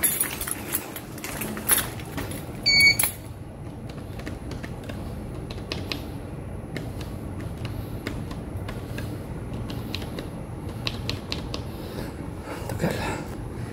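Rattling clicks and knocks for the first few seconds, a short electronic beep about three seconds in, then a steady low hum with scattered faint ticks.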